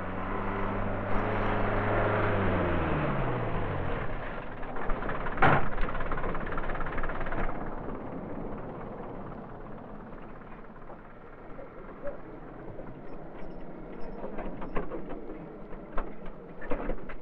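Military Land Rover engine running, its pitch falling and dying away over the first few seconds, over a rushing noise. One sharp knock comes about five seconds in. After that the sound quietens to scattered light clicks and clatter.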